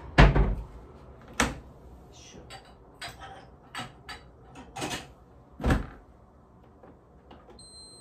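Household clatter: a series of sharp knocks and clunks, about six louder ones among small clicks, like doors and items being handled. Near the end a household machine gives a single steady high electronic beep.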